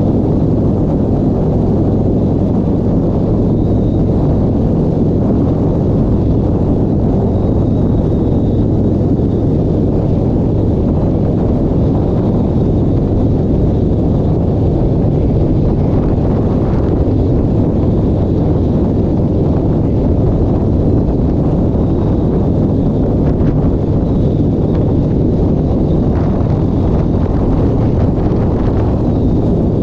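An engine running at a steady speed under heavy wind buffeting on the microphone, making a loud, constant low rumble with a steady hum.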